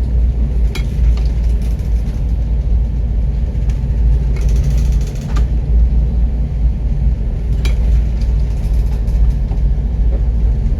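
Loud, steady deep rumble with a few short knocks or clatters: one about a second in, a cluster around four to five seconds, and one near eight seconds.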